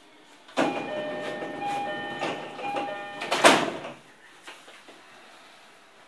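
E231 series commuter train's sliding doors closing at a station stop. A repeating chime sounds over the rush of the doors moving, starting suddenly about half a second in, and the doors shut with a loud thud about three and a half seconds in.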